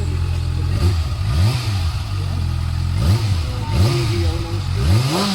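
Kawasaki Ninja ZX-6R inline-four engine idling and being blipped on the throttle several times, each short rev rising and falling straight back to idle.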